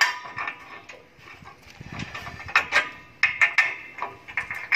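Irregular sharp metallic clinks and clicks with a short ring as a wrench and steel parts knock against each other while a bolt is worked on a concrete block machine's steel frame.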